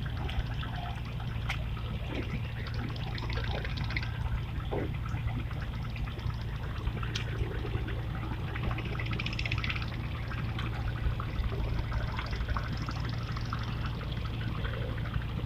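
River water trickling and splashing at the bank, with many small splashes over a steady low hum.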